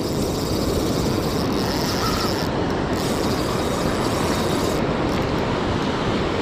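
Steady, loud rush of breaking surf and wind on the microphone, with the mechanical whir of a spinning reel being worked while a hooked fish pulls out line.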